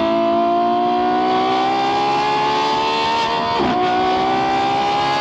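Lamborghini Revuelto's naturally aspirated V12, fitted with an aftermarket exhaust, pulling hard under acceleration. Its note climbs steadily in pitch, dips at a quick upshift a little over halfway through, then climbs again in the next gear.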